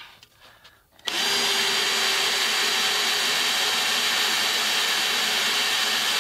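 Ryobi cordless drill starting about a second in and running steadily at full speed with a constant whine. It is driving a black oxide bit through the steel pillar of a shipping container, the hole oiled with 3-in-1 oil.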